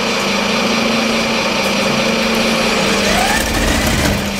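Radio-controlled scale model Caterpillar bulldozer driving down the ramps of a model low-loader trailer: a steady, engine-like running hum with a whine that rises in pitch about three seconds in.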